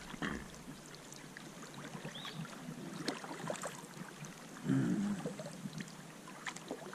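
Small wind-driven waves lapping and trickling against the hull of a drifting Hornbeck solo canoe, with a few light knocks. About five seconds in there is a brief low hum, the loudest moment.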